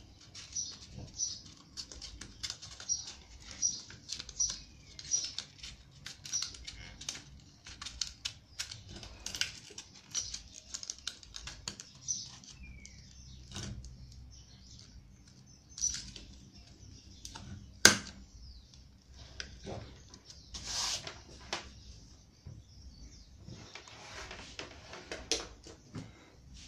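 Sandpaper being fitted and clamped onto the pad of a Bosch GSS 2300 orbital sander: paper rustling and scattered small plastic clicks from handling the tool and its clamp, with one sharp snap about two-thirds of the way through.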